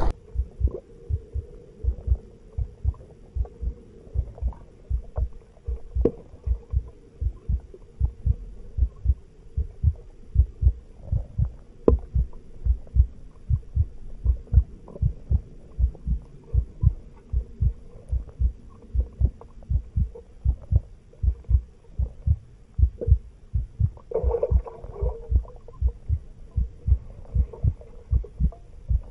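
Steady rhythm of low thuds in pairs, like a heartbeat, roughly once a second, over a constant hum. Near the end a short louder rush of sound passes over it.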